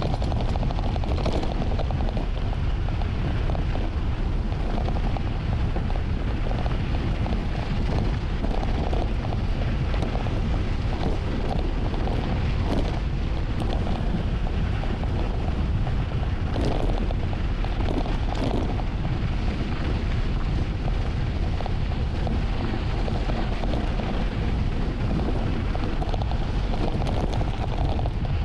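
Wind buffeting the microphone of a camera on a mountain bike speeding downhill: a steady low rumble, with a few brief knocks and rattles from the bike over rough ground.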